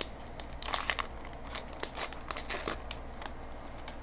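Wrapper of a Star Wars Evolution trading card pack crinkling and tearing as it is ripped open by hand, in a run of sharp crackles that thin out near the end.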